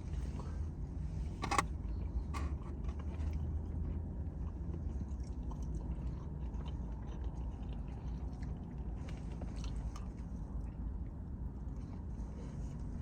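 A person chewing food with soft mouth clicks, over a steady low hum, with one sharp click about a second and a half in.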